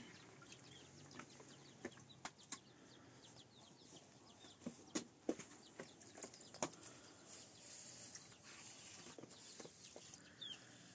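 Quiet outdoor ambience with faint, irregularly spaced short clicks and knocks.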